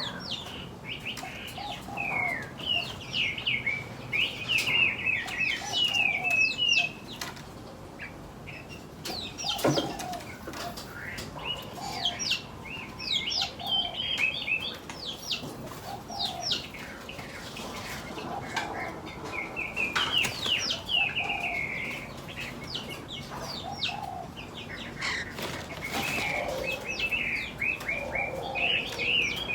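Several small aviary birds chirping busily in quick, overlapping bursts, with lower short calls mixed in and occasional fluttering wing flaps and clicks.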